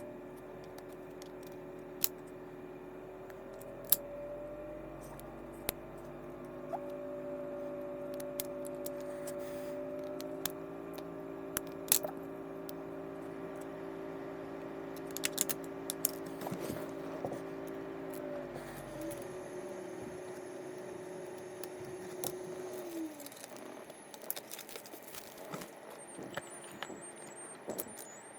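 Scattered clicks and clinks of small metal parts being handled as a fishing reel is taken apart, over a steady hum that stops about two-thirds of the way through.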